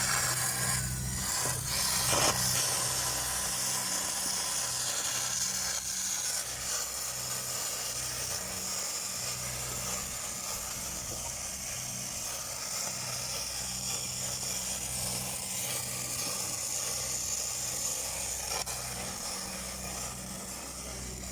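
Stick welding arc on pipe, crackling and hissing steadily, over a low pulsing hum. A few sharp knocks come in the first two seconds.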